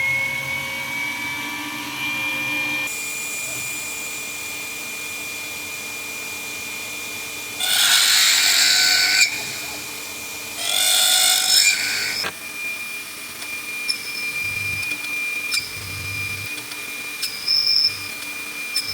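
CNC mill spindle running with a steady high whine while a drill bit of a little over a quarter inch bores the hole for the latch rod; two loud drilling passes of about a second and a half each come around eight and eleven seconds in.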